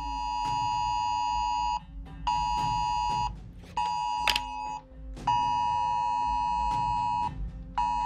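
iPhone Wireless Emergency Alert attention tone, a harsh two-pitch alarm tone blaring from the phone's speaker in a repeating long–short–short pattern: about two seconds on, then two one-second blasts, each separated by a half-second gap. It signals an emergency alert, here a flash flood warning.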